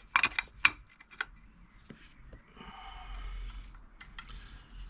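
A quick run of light clicks and taps from small metal parts being handled as brake shoes and their springs are fitted to a motorcycle drum-brake plate, followed by a soft rustling scrape.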